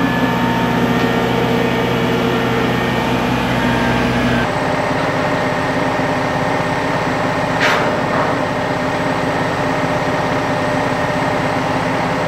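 Heavy diesel engine of an all-terrain mobile crane running steadily under a lift; its sound changes abruptly about four and a half seconds in, and a short hiss sounds a little past halfway.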